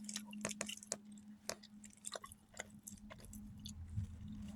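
A person chewing a bite of soft Colby Jack cheese stick with the mouth closed: faint, irregular small wet clicks.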